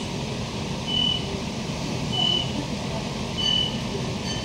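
Door-open beeper of a Queensland Rail IMU 160 series electric train standing at a platform: a short high beep about every second and a quarter, four times, over the steady low hum of the stationary train's equipment. The beeps signal that the doors are open.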